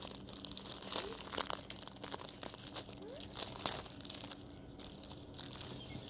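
Plastic packaging crinkling and crackling in irregular bursts as it is handled and pulled open by hand.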